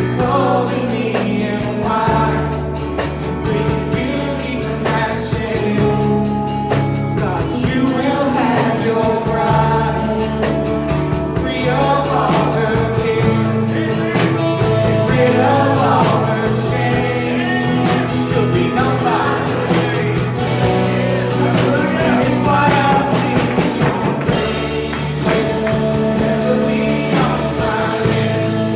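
Church worship band playing a gospel song with voices singing over it, a drum kit keeping a steady beat.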